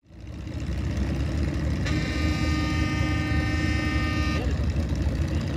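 Antique tractor engines running with a steady low rumble, and a horn sounding one steady note for about two and a half seconds, starting about two seconds in.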